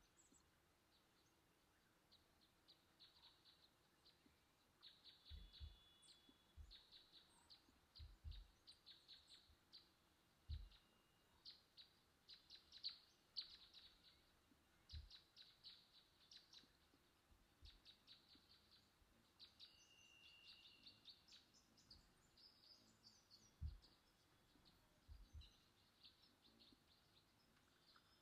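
Near silence, with faint bursts of rapid high-pitched ticks and a few soft low thumps.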